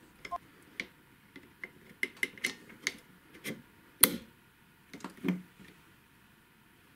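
Plastic clicks and ticks of a rear wiper blade being slid and pressed onto a VW Golf 7's rear wiper arm: a string of small irregular clicks, a sharp louder click about four seconds in as the blade snaps into place, and a duller knock a second later.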